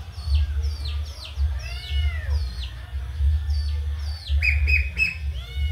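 Ducklings peeping, short high notes that slide down, several a second. A kitten mews a few times among them, about two seconds in and again near the end, over a steady low hum.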